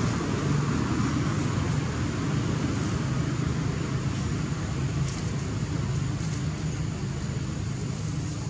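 Steady outdoor background rumble at an even level, with a faint thin high tone held throughout.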